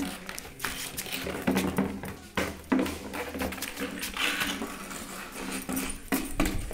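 Labrador puppy biting and pushing an empty plastic bottle across a hard floor: an irregular run of crinkles, clicks and knocks from the thin plastic.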